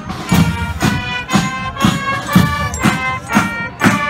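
Military band playing a march: a drum beating about twice a second under held notes from wind instruments.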